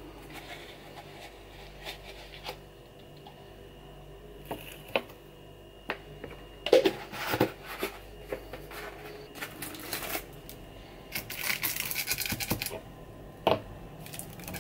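Handling sounds of a supplement tub and plastic scoop as amino powder is scooped and tipped into a plastic bottle of water: scattered clicks and short scrapes, with a denser run of scraping near the end.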